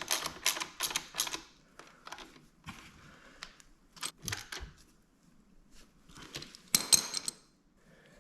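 Socket ratchet clicking as the brake caliper bracket bolts are tightened. A quick, even run of clicks stops about a second in, scattered clicks and knocks follow, and a loud short burst of clicks comes near the end.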